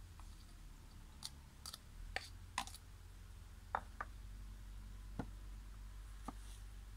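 Knife blade knocking on a wooden cutting board as vegetables are sliced, about eight sharp, irregularly spaced clicks over a steady low hum.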